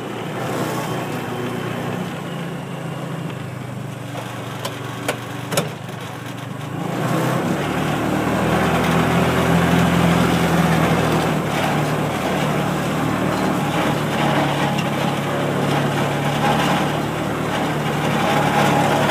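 Engine of a small ride-on farm vehicle running steadily, throttling up and getting louder about seven seconds in. A few sharp knocks come about five seconds in.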